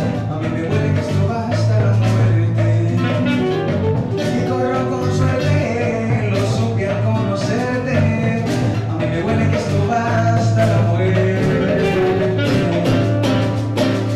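A man sings into a microphone while strumming a nylon-string classical guitar, over a steady low bass line.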